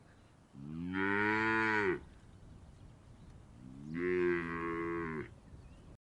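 A cow mooing twice, two long low calls of a second and a half each, the pitch dropping off at the end of each.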